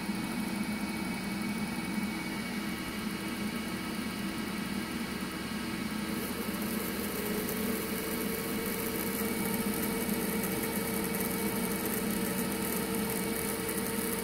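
Cooling fans of a bank of switching power supplies running with a steady hum and whir. About six seconds in, a fan speeds up, adding a higher hiss and a new steady tone.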